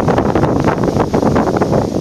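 Loud wind noise buffeting the microphone, a dense, fluttering rush.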